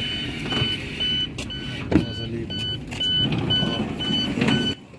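ICE train door warning beeper sounding short beeps, about three a second, while someone steps aboard through the open door with knocks and clatter. A sharp knock comes about two seconds in, and the surrounding noise drops away suddenly near the end as they get inside.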